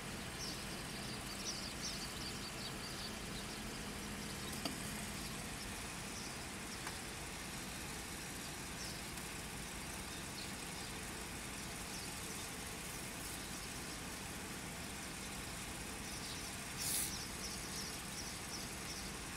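Steady low background rumble of distant machinery with a faint hum, a few faint high chirps in the first few seconds, a single light click about five seconds in and a brief hiss near the end.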